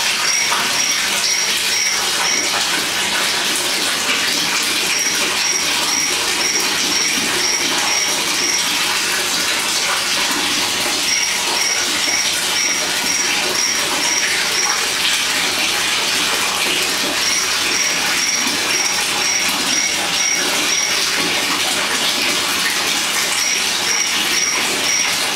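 Aquarium aeration bubbling: a steady stream of air bubbles rising from an air stone and splashing at the water surface of a bare glass tank. A high, evenly spaced pulsing, about two or three pulses a second, comes and goes in runs of a few seconds.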